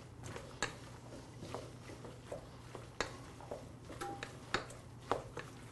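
A wooden spoon stirring bread cubes and sautéed vegetables in a stainless steel bowl: faint, irregular light knocks and scrapes of the spoon against the bowl, over a low steady hum.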